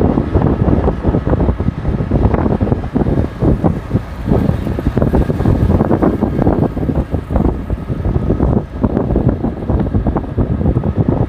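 Wind buffeting the microphone in irregular gusts while riding in a moving open-sided auto-rickshaw, with the vehicle's running noise underneath.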